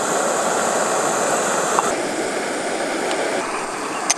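Portable gas camping stove burner running with a steady hiss under a kettle. The higher part of the hiss drops away about halfway through, and there is a light clink near the end.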